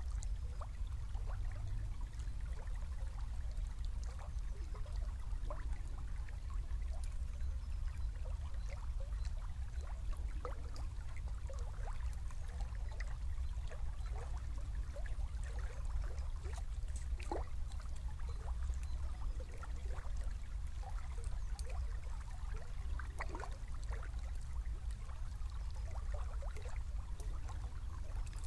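Small river flowing, trickling and gurgling with many small bubbling plinks over a steady low rumble.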